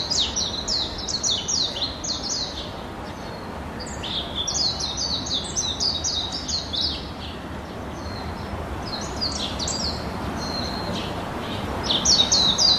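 Birds chirping: runs of quick, short, high chirps that each drop in pitch, several a second, broken by short pauses about two seconds in, around nine seconds in, and starting up again strongly near the end.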